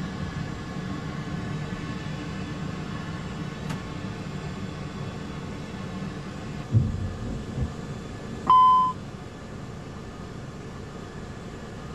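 Steady low rumble of an Airbus A320 climbing after takeoff, with a dull thump about seven seconds in. About eight and a half seconds in comes a single half-second electronic beep, the cockpit caution chime that sounds at an engine failure.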